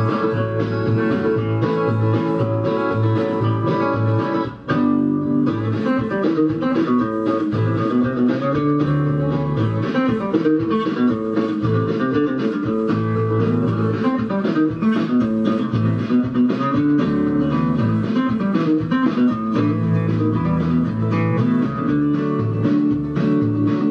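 Guitar music played through a Sakura 737 power amplifier modified to five pairs of output transistors, run as a listening test. There is a short break in the music about four and a half seconds in.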